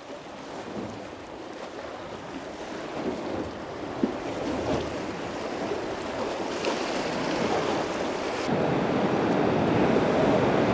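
River rapids: whitewater rushing and churning, growing steadily louder and stepping up sharply near the end.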